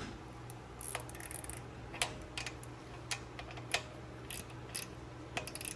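Irregular small metallic clicks and taps of carburetor parts being handled and refitted on a Honda GCV190 small engine, with a short rustle about a second in, over a steady low hum.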